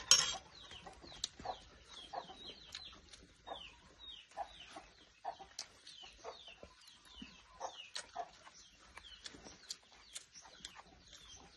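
Chickens clucking, with many short, high, falling chirps throughout. A sharp loud knock comes right at the start.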